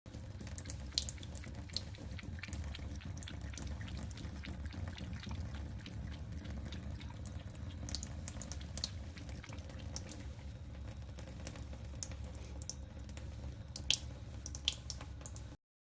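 Tap water running into a sink in a steady stream, with irregular sharp splashes and drips over it.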